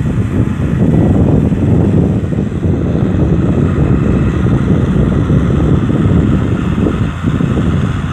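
Kubota M6040 SU tractor's diesel engine running steadily while ploughing a paddy field, with heavy wind buffeting on the microphone.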